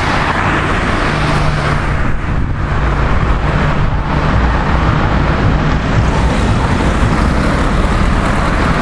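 Street traffic noise with a motor vehicle engine running steadily close by, a low steady hum under a loud even rush.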